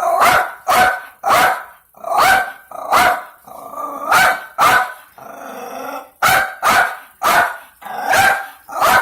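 Small dog barking over and over, about two sharp barks a second, at a solar-powered toy hummingbird. Partway through the barking gives way to a longer, drawn-out growl before the barks start again.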